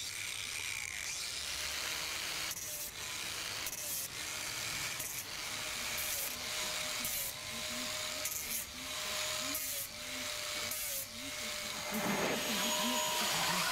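Electric angle grinder running and grinding a bronze fitting held in a vise. Its motor note sags briefly about once a second as the disc is pressed onto the metal and lifted off again. Near the end an electric drill boring into wood takes over, louder.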